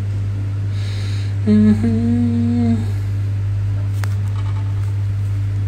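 A man's brief closed-mouth 'hmm', about a second long, over a steady low hum.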